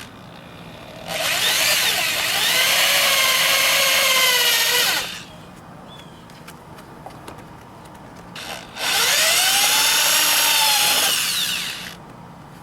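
A handheld high-speed rotary tool (Dremel) runs in two bursts of about four and three seconds, cutting into the motorcycle's plastic fairing to enlarge the hole over the frame-slider bolt. Its whine wavers in pitch as it bites into the plastic.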